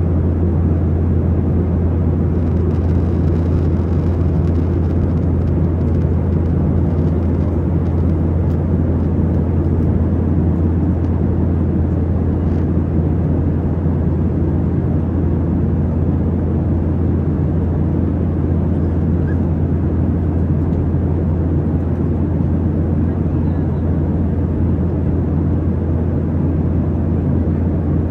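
Airplane's steady engine drone: a strong, constant low hum under a broad rumble, unchanging throughout.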